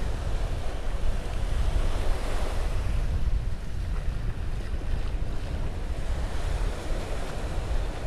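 Small waves breaking and washing up a sandy shore, with wind buffeting the microphone.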